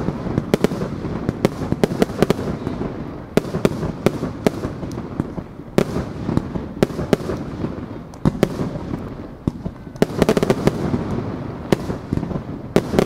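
Aerial fireworks shells bursting overhead: an irregular series of sharp bangs and pops, a few a second at times, with a thick cluster of rapid bangs about ten seconds in.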